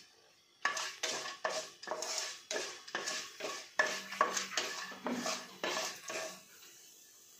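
Wooden spatula stirring and scraping chana dal and mustard seeds around a nonstick frying pan in hot oil. A quick run of scrapes, about three a second, starts just under a second in and stops about six seconds in.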